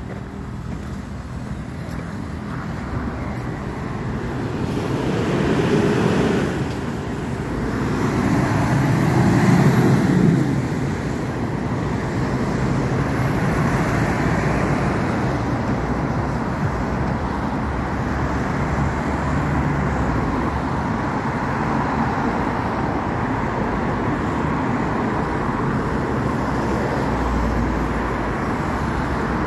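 Road traffic going by close at hand: cars and a curtain-sided lorry passing. Two vehicles pass loudest, about six and ten seconds in, then the traffic runs on steadily.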